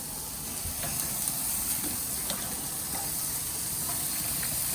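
Steaks sizzling on a gas grill: a steady hiss with small scattered crackles.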